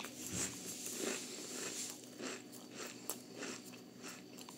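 A person chewing food close to the microphone: soft mouth and chewing noises, about one every half second.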